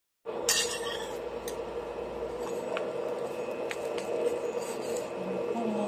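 Metal kitchen tongs clicking and scraping against a nonstick frying pan as a tortilla is pressed and turned, with a cluster of sharp clinks just after the start and single clicks about once a second after. A steady hum runs underneath.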